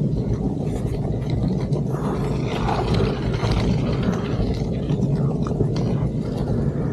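Steady low rumbling noise of wind buffeting the microphone, with faint scraping over it, as from riding a bicycle along a snowy road.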